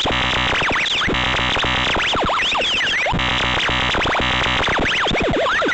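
Synthesized emergency alert alarm, loud and unbroken. A harsh buzzing tone alternates with flurries of fast sweeping chirps that fall and rise in pitch, the cycle repeating every couple of seconds.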